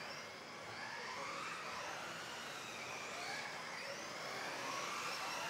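Several electric RC off-road buggies racing, their motors whining in overlapping tones that rise and fall in pitch as they speed up and slow down.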